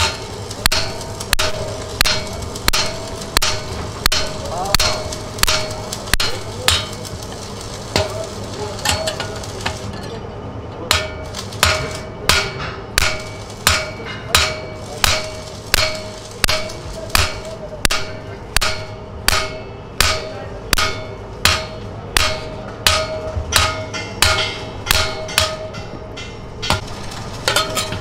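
Hand hammer striking a steel truck clutch disc assembly over and over at a steady pace, about one and a half blows a second, each with a short metallic ring. The blows stop shortly before the end.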